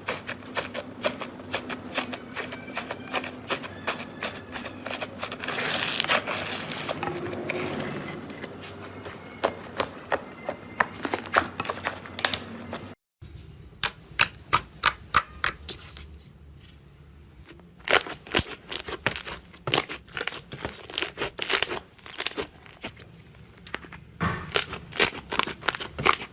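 Slime being squeezed and poked by hand, with many sharp clicking pops and a dense crackle. It breaks off about halfway, and then come irregular runs of sharp pops from slime being pressed.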